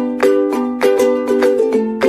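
Background music: plucked strings, ukulele-like, strumming chords in a steady bouncy rhythm, with a change of chord near the end.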